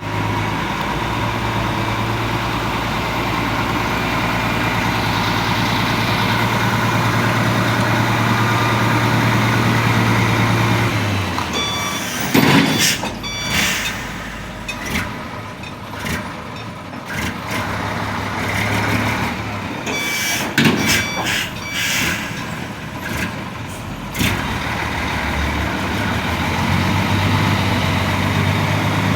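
Heavy diesel engine running steadily with a low hum. Through the middle comes a stretch of sharp clanks and short hisses, after which the steady running returns near the end.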